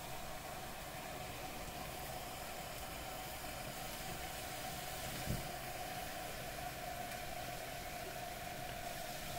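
Liquid nitrogen being poured into a copper LN2 overclocking pot, boiling off with a steady hiss as the pot cools toward full pot. One soft thump about five seconds in.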